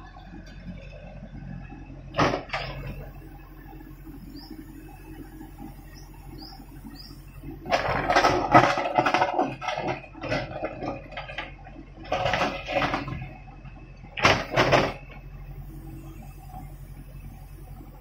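Backhoe loader's diesel engine running steadily while its bucket scrapes and drags through rocky rubble. The scraping comes in loud crunching bursts: a short one about two seconds in, a long one from about eight to eleven seconds, and shorter ones around twelve and fourteen seconds.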